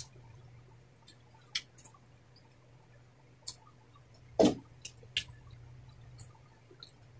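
Close-up eating sounds: wet chewing, lip smacks and small mouth clicks, with one louder wet mouth sound about four and a half seconds in. A low steady hum runs underneath.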